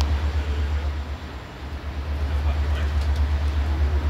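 Diesel locomotive engine idling: a low, steady rumble with an even throb, easing off briefly about a second in.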